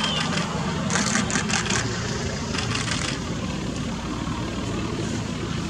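Vehicle engine idling steadily with a low, even hum. Two short runs of rapid clicks come about a second in and again near the three-second mark.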